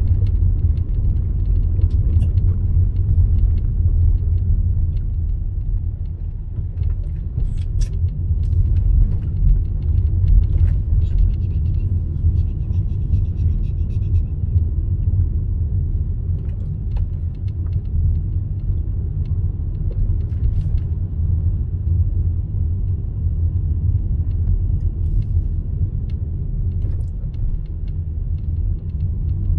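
Steady low rumble of a car's engine and tyres heard from inside the cabin while driving, with scattered small clicks and rattles.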